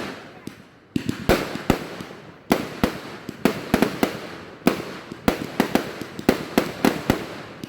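Fireworks going off: one bang dying away, then from about a second in a rapid, irregular string of sharp bangs, several a second.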